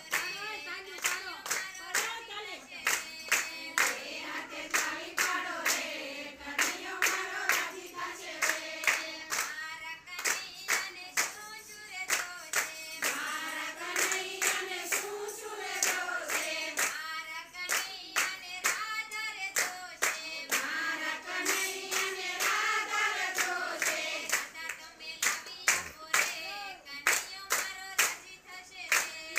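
A group of women singing a Gujarati devotional kirtan together, clapping their hands in a steady beat.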